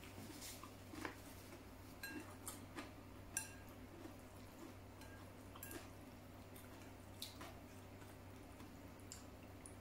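Chopsticks clicking faintly against a ceramic noodle bowl as noodles are picked up, with a couple of short ringing clinks, the clearest about three and a half seconds in. A steady low hum runs underneath.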